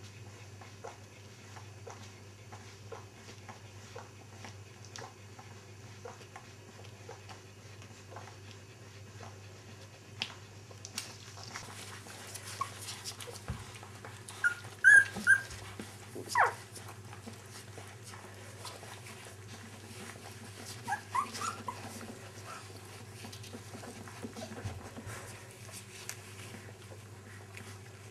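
Dogs whimpering: short high whines clustered about halfway through and a few more a little later, over a steady low hum and scattered small clicks.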